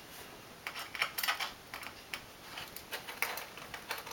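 Jeweler's Phillips screwdriver backing a tiny screw out of a 13-inch MacBook Pro's aluminium bottom case: a quick, irregular run of light clicks and ticks.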